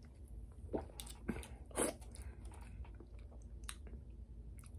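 A person sipping and swallowing an energy drink from an aluminium can: a few short gulps and mouth noises, the loudest a little under two seconds in, then faint small clicks as the can is handled.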